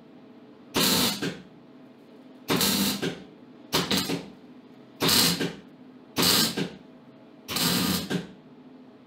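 MIG welder arc welding an exhaust pipe joint in six short bursts about a second apart, with quiet gaps between them: stitch welding done in short runs.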